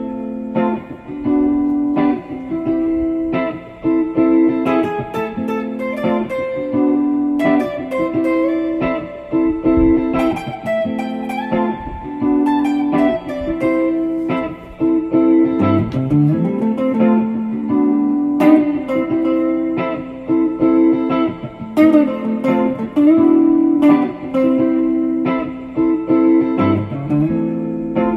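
Guitar music: plucked guitar notes in a repeating pattern, with a low note sliding upward about halfway through and again near the end.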